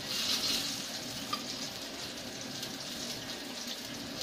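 Eggplant pieces sizzling steadily in hot oil in a frying pan, loudest in the first second, with one short clink about a second in.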